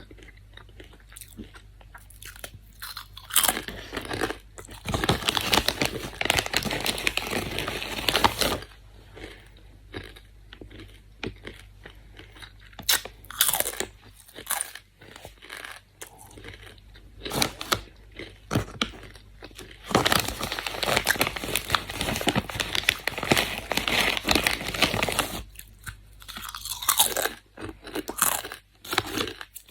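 Doritos tortilla chips being bitten and chewed close to the microphone: two long stretches of steady, loud crunching, with single sharp crunches in between.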